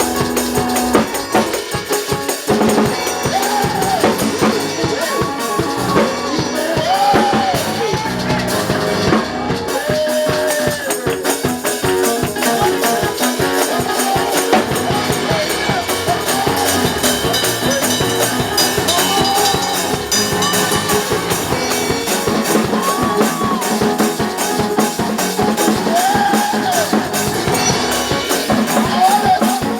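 Live church music: a drum kit and tambourine keep a steady, driving beat, with gliding melodic lines over it.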